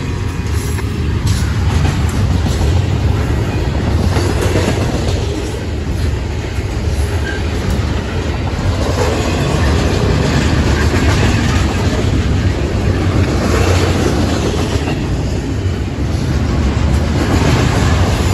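Freight train rolling past at speed, its double-stack container well cars and steel wheels on the rails making a steady, loud rumble that swells and eases slightly as the cars go by.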